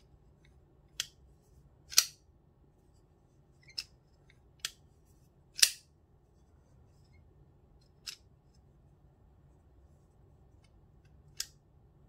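Doom Blade folding knife with a D2 blade on ball-bearing washers being flipped open and shut: seven sharp, separate clicks of the blade swinging on its pivot and snapping into place. The loudest come about two seconds in and about halfway through.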